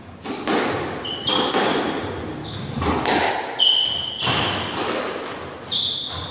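Squash rally: the ball is struck by rackets and smacks off the court walls, about once or twice a second, each hit echoing briefly. Short high squeaks of court shoes on the hardwood floor come in between.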